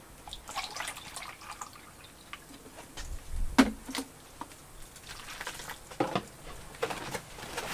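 Wet seed-starting mix being stirred and scooped by hand in a plastic tub, with soft wet squishing and scattered light knocks of the scoop against the tub. The mix is being wetted just enough to hold together in a soil blocker.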